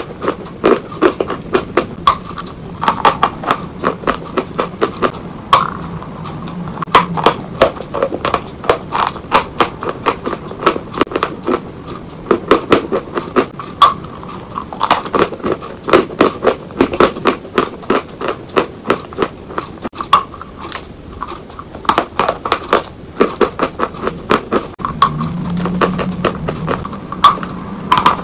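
A lump of chalk being bitten and chewed close to the microphone: many sharp, crisp crunches and cracks in quick runs as it breaks between the teeth.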